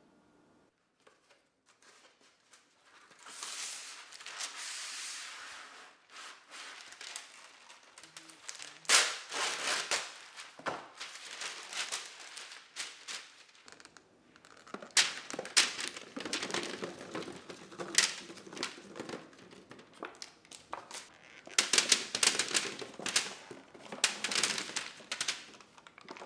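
Food-preparation handling noises in a kitchen: crinkling and rustling, broken by scattered sharp clicks and knocks.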